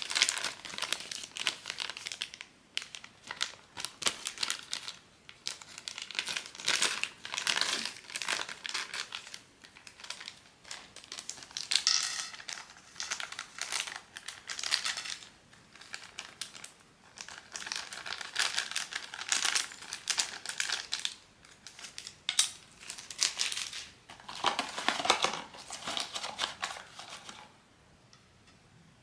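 Blind-box packaging wrapper crinkling and rustling in irregular bursts as it is handled and torn open, stopping shortly before the end.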